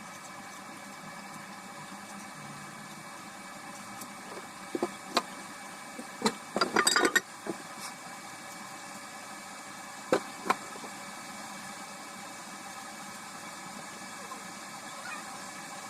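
Kitchenware clinking and knocking against a steady background hum: a few single clinks, then a quick run of them about six to seven seconds in, and two more about ten seconds in.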